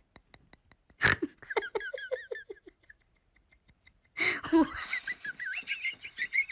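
A person laughing in two bouts, about a second in and again about four seconds in, short repeated falling bursts. The second bout is mixed with a high wavering cry from a dog sitting up and howling.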